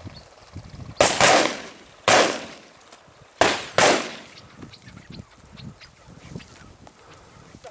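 Four shotgun shots at flushed partridges: two about a second apart, then a pair in quick succession, each trailing off in a long echo.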